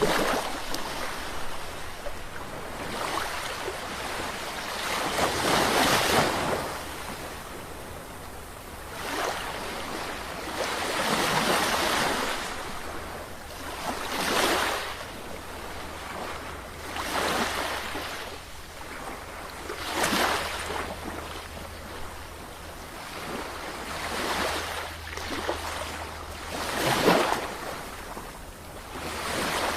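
Sea waves breaking and washing up, in a series of swells that rise and fall every few seconds, with a steady low rumble underneath.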